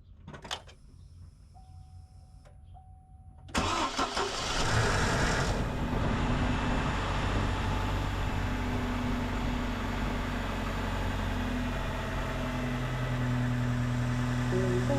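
2004 GMC Canyon engine started after its spark plugs were replaced to cure a suspected spark or coil problem. About three and a half seconds in it cranks and catches, then settles into a steady idle.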